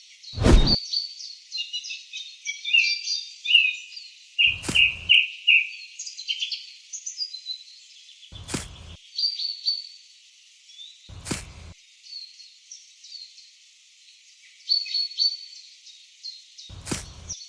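Birds chirping and twittering in a busy, high-pitched chorus with no low sounds under it. Five short knocks fall at irregular intervals through it, the first the loudest.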